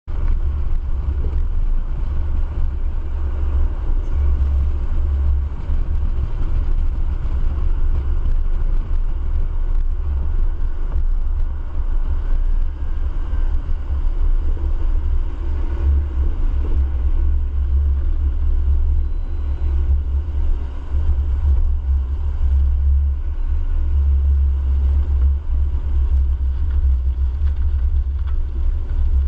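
A road vehicle driving at a steady pace: a continuous low rumble of engine and road noise with no clear revving.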